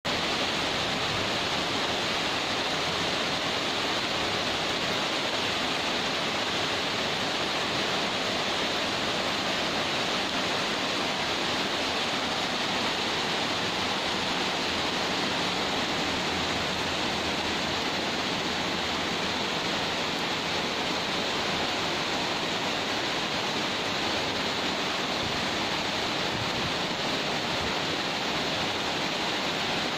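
Heavy rain falling steadily in a dense, even hiss, a tropical downpour pouring onto tiled roofs, balconies and the street below.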